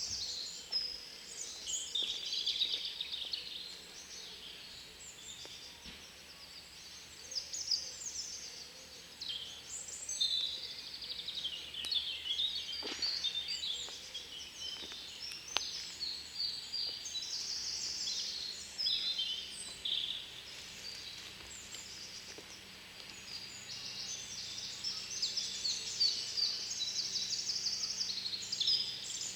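Several songbirds singing and calling at once, a spring chorus of overlapping chirps, whistled phrases and fast trills that carries on throughout.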